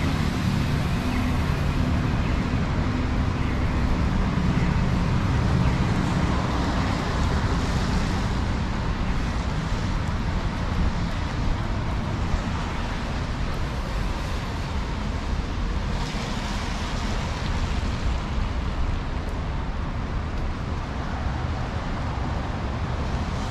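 City street traffic on wet pavement: cars passing with tyre hiss over a steady low rumble.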